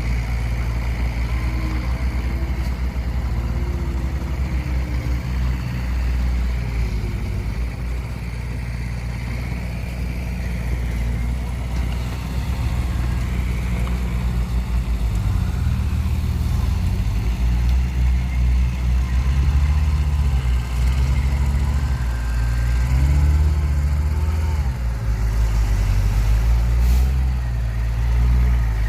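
Heavy diesel engines of earth-moving machinery and dump trucks running, the engine note rising and falling under load in the second half.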